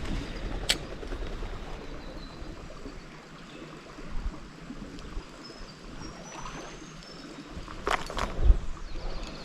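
Creek water running steadily, with a few sharp knocks: one about a second in and a louder pair near the end.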